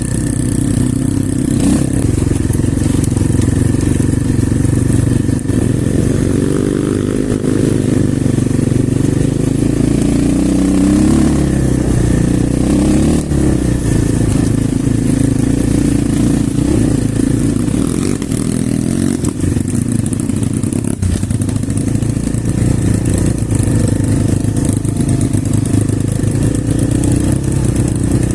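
Single-cylinder off-road motorcycle engine running under way; the revs rise and fall through the middle, otherwise a steady drone.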